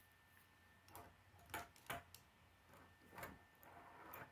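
Plastic K'nex parts clicking and tapping against each other and the wooden tabletop as a hand turns and moves the model: a handful of light, irregular clicks, the two sharpest a little under two seconds in.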